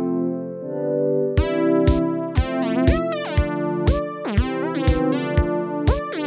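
Electronic intro music: sustained synthesizer chords, joined about a second and a half in by a steady beat of about two hits a second and keyboard notes that slide in pitch.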